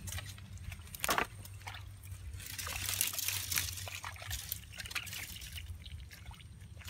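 A hand digging into a waterlogged mud crab burrow: wet mud squelching and sloshing, with scattered clicks and a sharp click about a second in.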